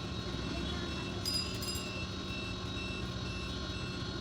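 A steady low mechanical hum, with a short high-pitched beep repeating about three times a second from about a second and a half in, like a reversing alarm.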